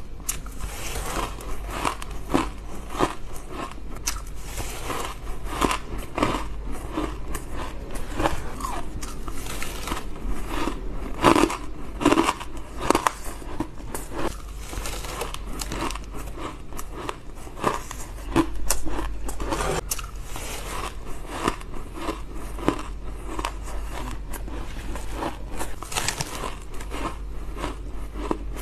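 Close-miked bites into spoonfuls of fine, powdery ice: a run of short, irregular crunches and chewing, loudest a little before the middle.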